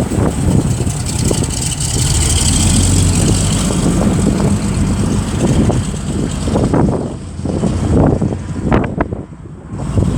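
Heavy vehicle engine running with a steady low rumble, with wind buffeting the microphone; the sound dips briefly about nine seconds in.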